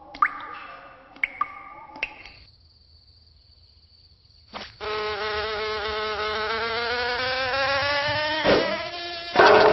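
Insect wings buzzing in flight, starting about halfway through and holding steady for several seconds with a slightly wavering pitch. Before it, a few short sharp chirps and clicks, then a brief lull.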